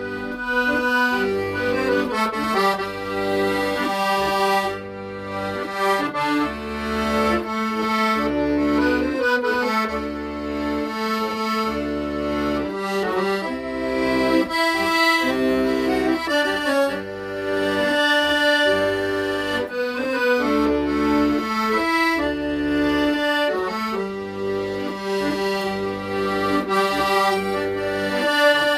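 Accordion playing a melody over held chords, with a regular pattern of low bass notes beneath.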